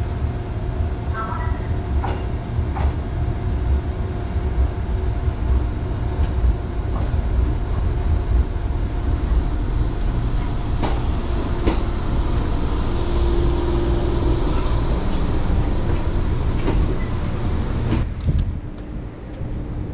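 Fujikyu 6000-series electric train pulling into the platform: a steady low rumble of wheels and running gear with a high hiss building and a few sharp clicks of wheels over the rails. The sound drops away suddenly near the end.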